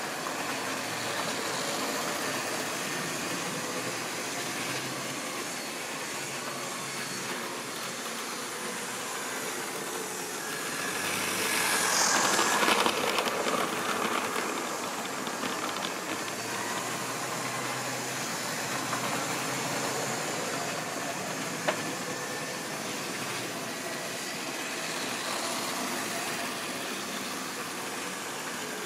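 Tri-ang or Lima model train running along the track, a steady rumble of motor and wheels that swells loudest about twelve seconds in as the wagons pass close by. A single sharp click comes a little past twenty seconds.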